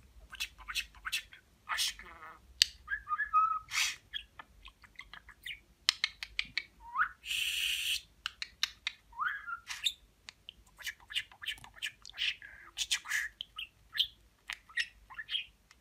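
Male budgerigar chattering: a rapid run of short chirps and clicks, two brief rising whistles around the middle, and a harsh scratchy squawk lasting under a second about seven seconds in.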